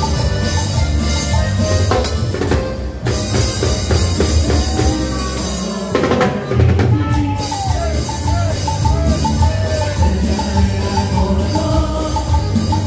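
Live Latin tropical dance band playing: drum kit and timbales keep a steady beat over heavy bass, with a sliding melodic line in the middle. The beat breaks briefly about two and a half seconds in and again near six seconds.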